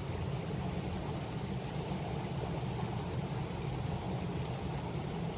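Steady rush of river water flowing over rocks, a low, even rumble without a break.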